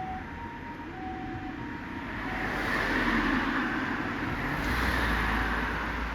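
Ambulance harmonic siren alternating between a higher and a lower note, each held about half a second, fading away over the first couple of seconds. About three seconds in, the road noise of passing traffic swells up.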